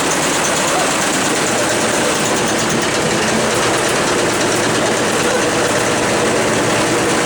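Brand-new washing machine running with a steady, loud mechanical rumble and rattle, an abnormal noise for a new machine.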